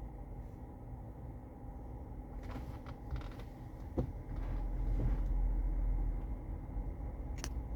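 Steady low hum inside a car cabin, with a few light clicks, a sharp knock about four seconds in, and the low rumble swelling for a couple of seconds after it.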